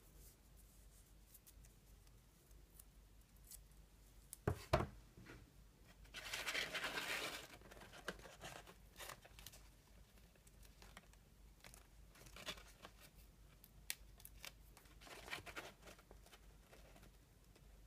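Adhesive tape being peeled off its roll: a rasping tear lasting nearly two seconds about six seconds in, just after two sharp knocks. Afterwards, soft rustling and light ticks as tape and satin ribbon are pressed onto a card box.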